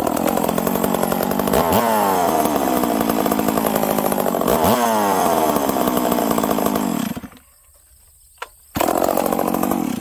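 Stihl 038 two-stroke chainsaw, pull-started, catching at once and running steadily with two short throttle blips, then shut off; it fires again briefly near the end. Its low-speed jet has just been leaned out, so it starts cold without the RPM sagging and picking back up.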